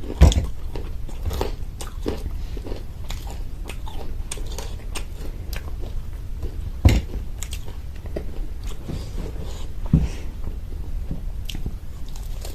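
Close-up chewing and biting of a crunchy fried samosa, with repeated crisp crackles of the pastry shell. A few louder, duller bites or thumps come just after the start, about 7 seconds in and about 10 seconds in.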